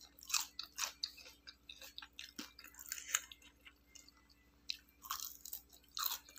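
A person biting and chewing crispy fried chicken close to the microphone: a string of irregular crunches.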